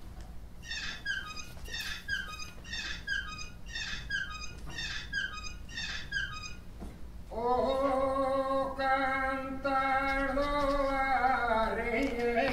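A high chirping figure of quick falling notes repeats about twice a second for some six seconds. About seven seconds in, a louder long held note starts, rich in overtones, and dips in pitch near the end.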